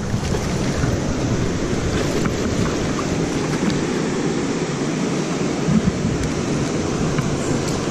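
Steady rush of water pouring through a river spillway, with small splashes from a hooked largemouth bass thrashing at the surface.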